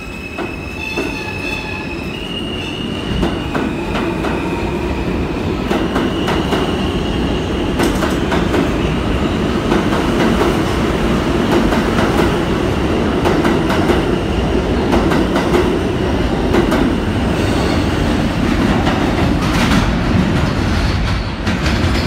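R160 subway train pulling out and accelerating past on the platform. Its propulsion gives a whine that steps in pitch over the first few seconds, then wheel-on-rail rumble and clacking over rail joints build up, with a thin squeal above. The sound drops off at the very end as the last car clears.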